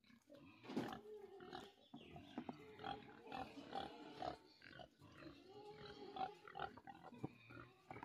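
A domestic pig calling over and over in a run of short, pitched grunts and squeals, each under a second long.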